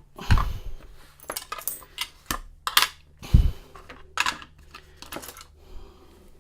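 Irregular metal clicks and clinks as an American 1100 padlock is taken apart by hand to get at its pins, with two heavier knocks, one just after the start and one past three seconds in.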